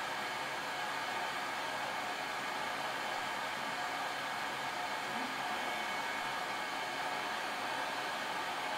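Hot-air rework station blowing a steady hiss of air over a memory chip on a graphics card board, heating it to reflow the solder.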